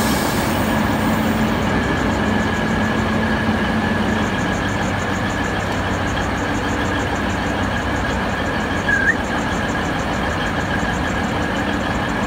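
Hunter railcar diesel multiple unit idling at the platform: a steady engine hum with a constant high whine over it. A brief high squeak about nine seconds in.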